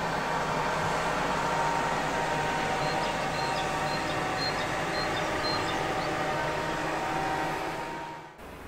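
A motor engine running steadily, fading out near the end.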